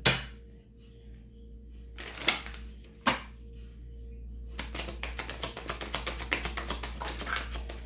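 Tarot cards being handled and shuffled: a few sharp taps and rustles, then a run of rapid flicking clicks for about three seconds, over soft background music.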